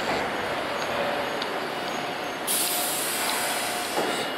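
Hiroshima Electric Railway Miyajima Line tram rolling slowly into the platform and stopping, with a faint steady tone under the rolling noise. About halfway through, a loud hiss of released air starts suddenly and lasts nearly two seconds, typical of the tram's air brakes as it halts.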